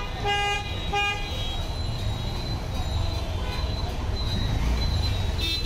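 A vehicle horn gives two short toots in the first second and a half, over a steady rumble of street traffic.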